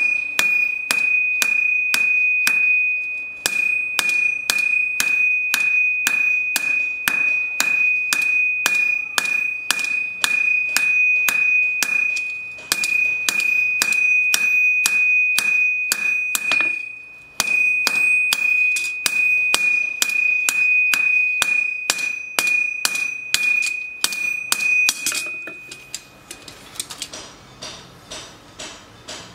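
Hand hammer forging a red-hot knife blade on a steel anvil: steady blows about three a second, with the anvil ringing in a high, sustained tone between them and a few short pauses. Near the end the ringing stops and only fainter, duller taps remain.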